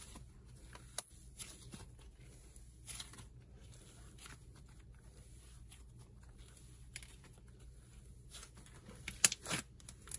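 Cloud dough slime being stretched, pulled apart and pressed by hand, giving faint scattered soft crackles, with a few louder clicks about nine seconds in.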